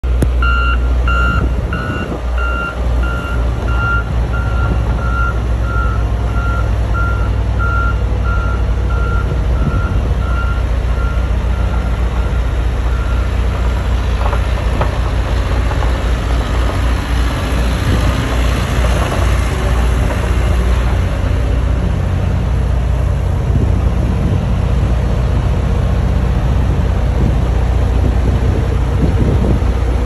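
A vehicle backup alarm beeping about one and a half times a second, growing fainter and dying out about halfway through, over the steady low rumble of heavy diesel engines running.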